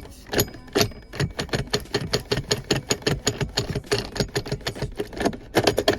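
Socket ratchet clicking in a steady run, about five or six sharp clicks a second, as a 10 mm bolt is turned.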